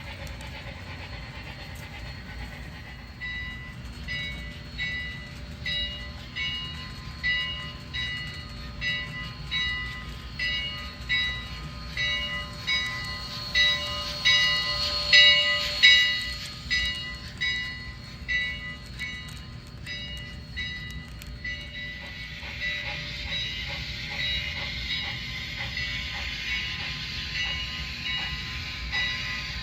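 Sound decoder of an HO scale Milwaukee Road Class A 4-4-2 Hiawatha model, playing through the locomotive's small speaker. A bell rings in steady strokes about once a second, starting a few seconds in. About two thirds of the way through it gives way to rapid steam exhaust chuffs over a steady hiss.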